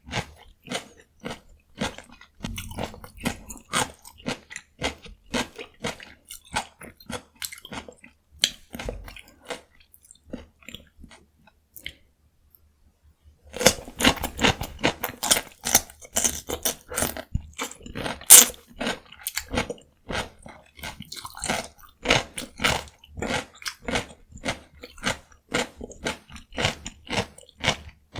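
Close-miked crunching and chewing of raw cucumber: rapid crisp crunches, a pause of about a second and a half near the middle, then a fresh bite and louder crunching.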